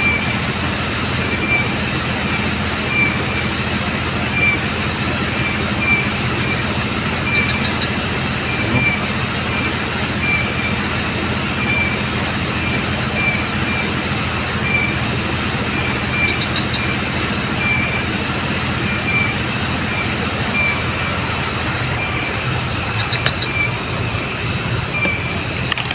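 Steady insect chorus: several high shrill tones running on, with a short chirp repeating roughly every second, a few brief triple ticks, and a low steady hum underneath.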